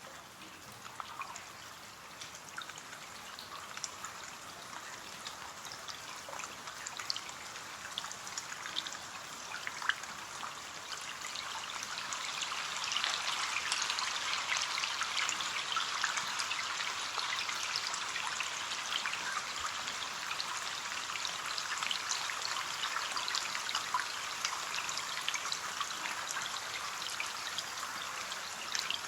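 Rain pattering and trickling on a window, a dense stream of small drops over a steady hiss that swells louder about halfway through.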